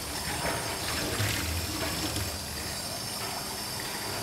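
Water running from a kitchen tap over a whole raw chicken and splashing into a stainless steel sink as the chicken is rinsed clean of blood.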